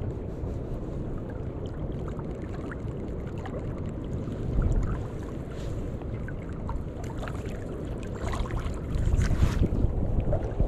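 Steady low rumble of wind buffeting the microphone over flowing river water, with scattered light ticks and splashes that grow louder from about eight seconds in.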